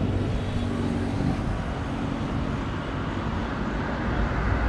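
Highway traffic going past: a steady road rumble and hiss, with a passing vehicle's engine hum fading out about two seconds in.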